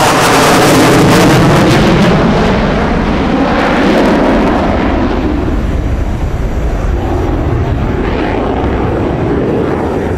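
Eurofighter Typhoon's twin EJ200 jet engines, loud and continuous as the fighter flies past during its display. The sound is loudest in the first few seconds, then slowly fades as the jet moves away.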